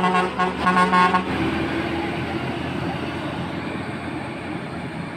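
Bus horn giving two short blasts in quick succession, then the bus's engine running steadily and slowly fading as it moves off.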